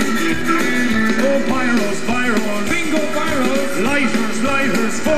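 Live rock band playing an instrumental passage between verses, with electric guitar and drums.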